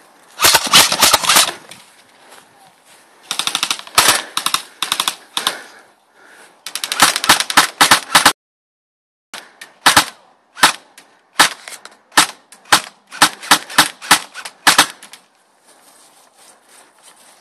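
Airsoft guns firing: three rapid full-auto bursts, then a string of single shots about two a second.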